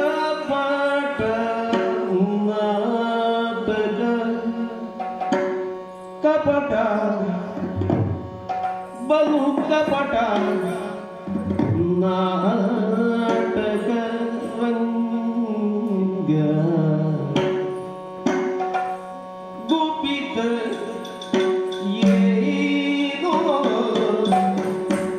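Yakshagana music: a Bhagavata's melismatic singing over a steady drone, with chende and maddale drum strokes.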